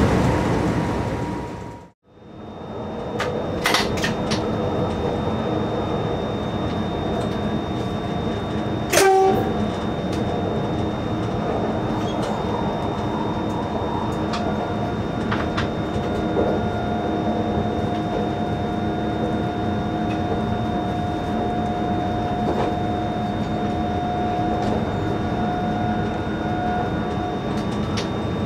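ÖBB Taurus electric locomotive heard from its cab at speed: the steady rumble of wheels on rail and running gear, with a few clicks. The sound dips to silence about two seconds in, a short two-tone horn blast sounds about nine seconds in, and a steady whine runs from about sixteen seconds until just before the end.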